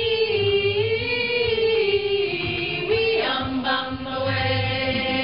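Voices singing long held notes in a musical number, the melody wavering and then dropping to a lower sustained note a little past halfway.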